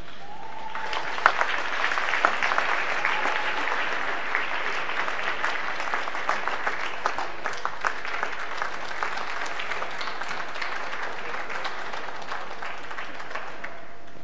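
Audience applauding at a figure skating competition: many hands clapping, starting about a second in with a few sharp claps and dying away near the end.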